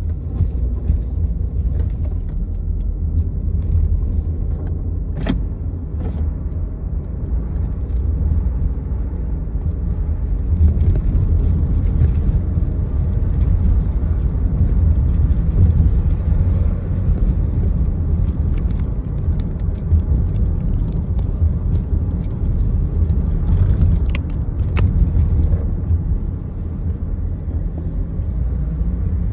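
Steady low rumble of a car on the move, road and engine noise, with a couple of sharp clicks about five seconds in and again near the end.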